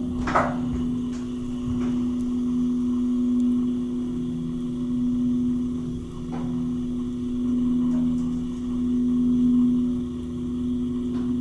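Hydraulic elevator pump motor starting and running: a steady, musical-sounding hum with a clear pitch. A short sharp sound comes right as it starts.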